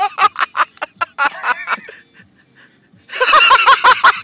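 People laughing hard in rapid, high-pitched bursts, breaking into louder laughter about three seconds in.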